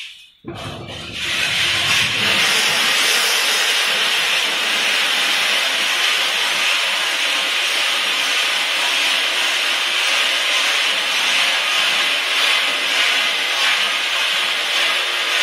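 Steady hissing rush of roasted kernels pouring out of the rotating drum of a continuous nut roasting machine as it discharges. The sound drops out briefly near the start, then comes back and holds even.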